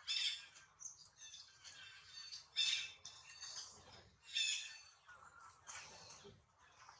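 Short, shrill animal calls repeating every second or so, three of them louder than the rest: near the start, about a third of the way through and past the middle.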